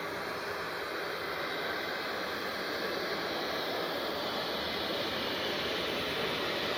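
Jet airliner engines heard as a steady rushing noise that slowly grows louder.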